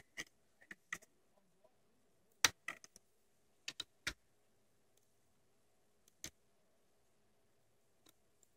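Scattered small clicks and taps from the plastic parts of an HP Compaq nc6400 laptop being handled and lifted during disassembly. They come a few at a time with quiet gaps between.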